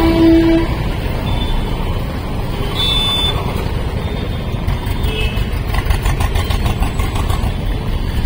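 Busy street traffic: motor vehicles running past in a steady rumble. A horn blast ends about half a second in, and a few short beeps follow later.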